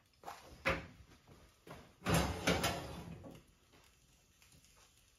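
Oven door and metal oven shelf being handled: a couple of short knocks in the first second, then a louder scraping rattle of the wire shelf being pulled out on its runners about two seconds in, lasting about a second, before it goes quiet.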